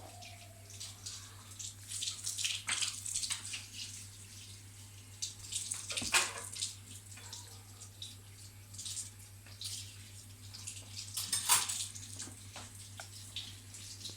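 Intermittent splashing and trickling of water, in irregular hissing spurts with a couple of louder splashes, over a steady low hum.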